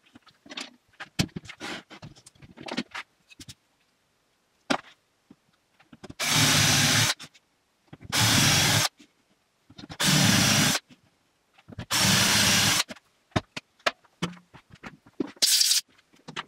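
Cordless drill boring dowel holes into a spruce board: four runs of about a second each, with knocks and clicks of handling the board and drill before them.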